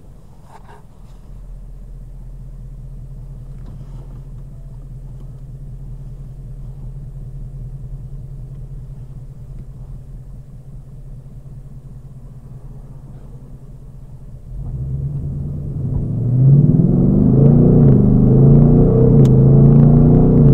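Ford Mustang GT's 5.0-litre V8, heard from inside the cabin, rumbling low and steady at light throttle. About 14 seconds in it gets much louder as the car accelerates: the engine note climbs in pitch, drops back at an upshift of the 10-speed automatic, then climbs again.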